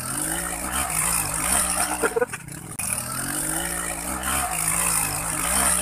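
Small motorcycle engine revving up and down under load as it climbs a muddy slope, its pitch rising and falling unevenly, with a short rattle about two seconds in.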